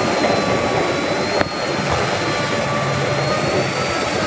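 DCA electric wood router running at speed with a steady high-pitched whine, its bit cutting shallow grooves into a wooden board. A brief click about a second and a half in.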